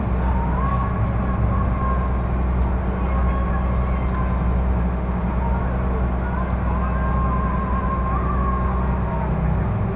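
Engine of a kempang passenger motorboat running steadily, a deep even drone, with a faint wavering higher tone drifting over it.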